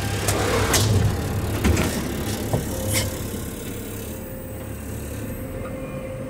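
A yard truck's diesel engine idling, heard from inside the cab, with several knocks and rattles in the first three seconds as the driver moves about the cab. From about three seconds in it settles to the steady idle with a faint thin tone over it.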